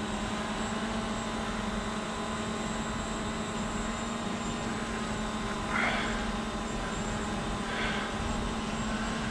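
Quadcopter drone hovering, its propellers giving a steady buzzing hum with many layered tones, as it hangs low waiting to be hand-landed.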